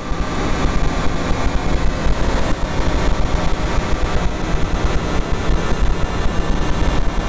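Harsh, distorted electronic noise played by the Core.exe trojan's sound payload, a dense crackling rumble that flickers rapidly in loudness.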